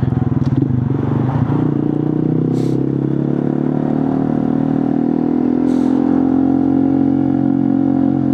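Honda Monkey 125's single-cylinder four-stroke engine running through a Scorpion titanium exhaust with the baffle out, heard on the move at a steady cruise. The pitch shifts about a second and a half in, then holds steady.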